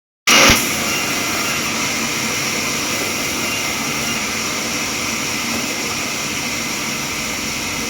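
Sawmill machinery running steadily: an even, loud mechanical noise with a constant high whine, starting with a brief louder burst.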